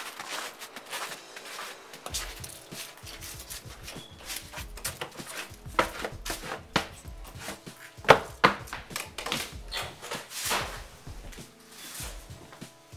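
Footsteps climbing indoor stairs: uneven knocks and thuds on the treads, with a sharp knock about eight seconds in.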